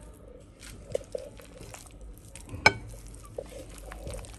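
A spoon stirring and folding potato salad with mayonnaise in a bowl: soft wet stirring sounds with a few light clicks, and one sharp knock about two and a half seconds in.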